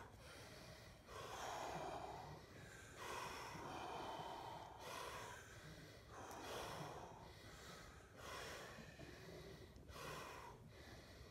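A man breathing deeply and rhythmically in and out while immersed to the neck in cold water, a breath about every second or so: controlled cold-exposure breathing to ride out the cold shock.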